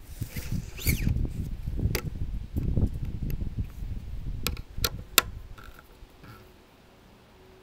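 Metal clicks and knocks from setting up a bamboo-rod planing form: a dial depth gauge is moved along the metal form and the stations are adjusted, over a low rumble of handling noise. One sharp click comes about 2 seconds in and a quick run of three about 4.5 to 5 seconds in, then it quietens.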